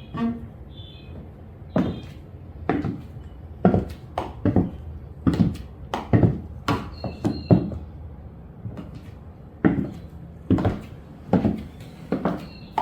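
Six-inch platform high heels striking the floor in walking steps, about one sharp step a second, with a pause of about two seconds near eight seconds in.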